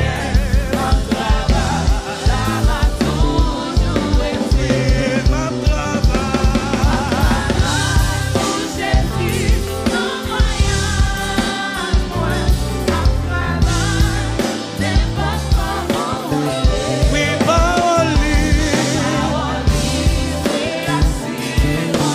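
Live gospel worship music: a man singing a Haitian Creole praise song into a microphone, backed by keyboard and a steady drum beat.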